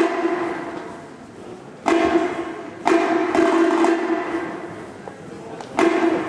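Marching band of brass and drums playing loud, accented chords. Each chord hits suddenly with a drum stroke, about two, three and six seconds in, and is held as it fades.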